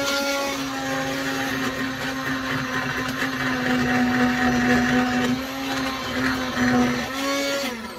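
Handheld immersion blender puréeing a pot of boiled leek soup, its motor running steadily and then switched off near the end.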